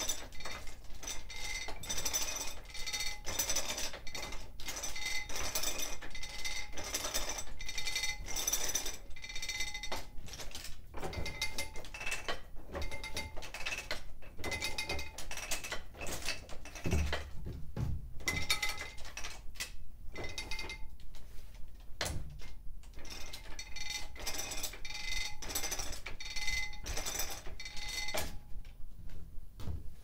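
Pre-1910 Frick sawmill carriage travelling along its wooden track, drawn by a cable wound on a drum: a continuous fast clatter and rattle of iron parts, with a high metallic ringing that comes and goes.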